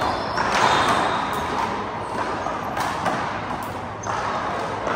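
Rubber handball rally: a series of sharp, irregularly spaced smacks as the ball is slapped by hand and strikes the wall and floor, with players' sneakers squeaking and scuffing on the court floor.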